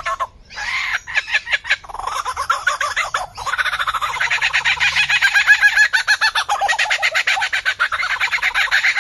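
A bird calling in a long, fast run of short repeated notes that goes on without a break after a brief pause at the start.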